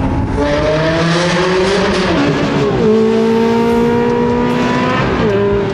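Ferrari 360 Challenge Stradale's V8 engine accelerating hard, its pitch climbing through the revs, dropping for an upshift a little over two seconds in, climbing again and dropping for another upshift near the end.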